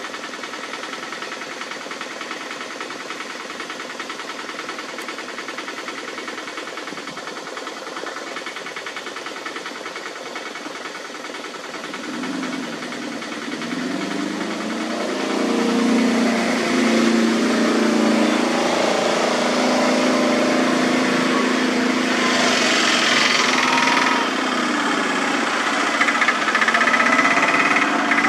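Vehicle engines idling steadily with a knocking, diesel-like beat. From about twelve seconds in, a louder engine draws close and its pitch shifts up and down as it slows. There is a brief hiss partway through.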